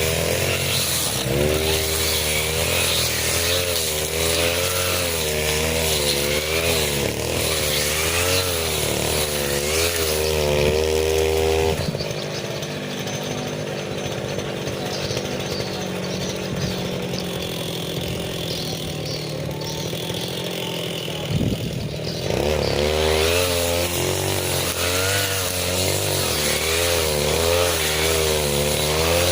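A 40cc two-stroke brush cutter running at high revs, its pitch wavering up and down as the blade bites into thick grass. About twelve seconds in it drops back to a lower, steadier running speed for some ten seconds, then revs up again and keeps cutting.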